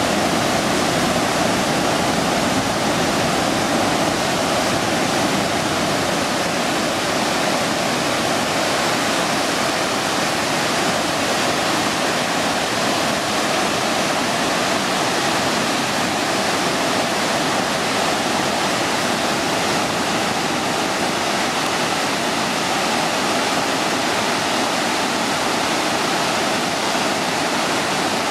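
River in flood rushing through rocky rapids: a loud, steady rush of churning whitewater.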